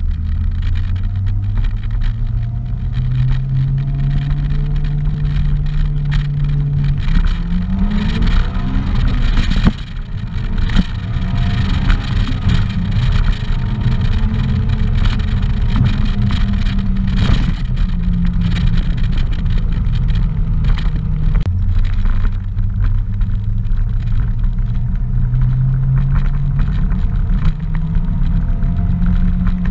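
A 2006 Acura RSX Type-S's 2.0-litre K20 four-cylinder engine is heard from inside the cabin, running through an AEM cold air intake and Invidia Q300 exhaust under hard acceleration. The revs climb, break off sharply about ten seconds in, drop again about twenty-one seconds in, then climb once more.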